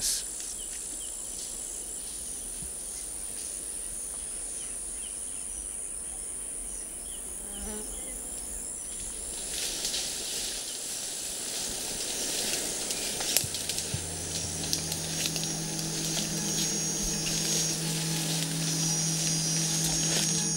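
Steady high-pitched buzz of tropical forest insects. From about ten seconds in, crackling rustles of leaves and undergrowth join it, and later some low steady tones.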